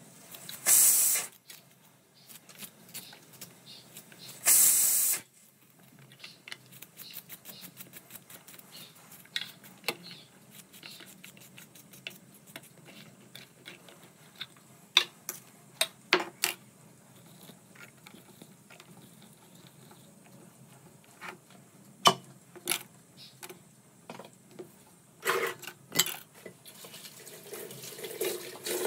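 Two short bursts of running or pouring water, each about a second long, near the start, followed by scattered clinks and knocks of pots and kitchen utensils.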